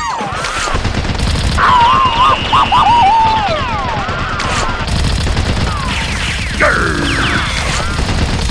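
Rapid gunfire sound effects, shots fired in quick bursts, laced with short whistling zips that fall in pitch.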